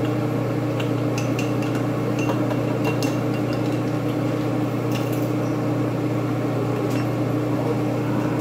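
Steady low hum of a kitchen appliance, with a few light clinks of a metal spoon stirring a cornstarch-and-water slurry in a small bowl.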